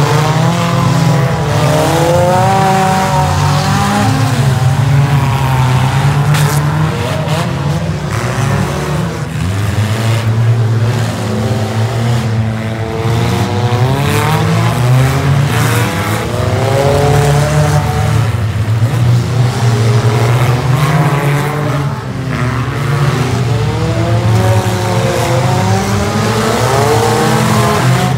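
Several derby cars' engines running hard together, overlapping pitches rising and falling as the cars accelerate and back off around the track.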